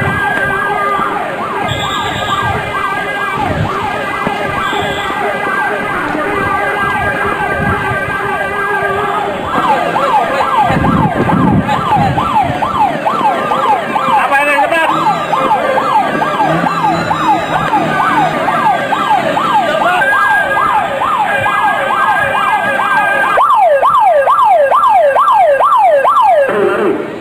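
An alarm siren sounding in fast rising-and-falling yelp sweeps, about two to three a second, calling an emergency muster. It cuts off near the end.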